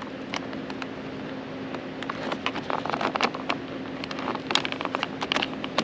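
Plastic trim cover at the side-mirror mount of a BMW G30 5 Series door being pried and peeled off by hand, with irregular clicks, snaps and crackling of plastic as it comes away. A faint steady hum runs underneath.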